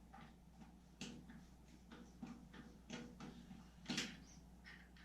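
Faint scattered clicks and knocks of parts and tools being handled while a Yerf Dog 3203 go-kart is taken apart, about five of them, the loudest about four seconds in.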